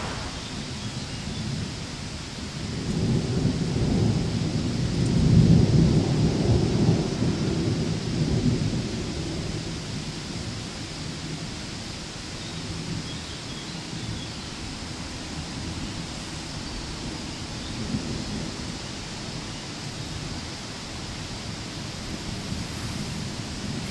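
Thunder rumbling, a long deep roll that swells about three seconds in and fades over several seconds, with a shorter rumble later, over a steady hiss of rain.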